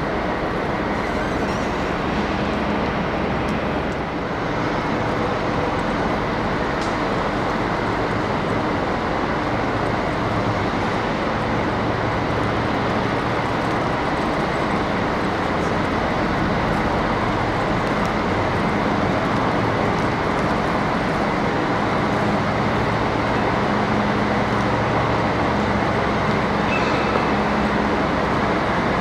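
A train running, a steady even noise with a faint low hum underneath that grows slightly louder near the end.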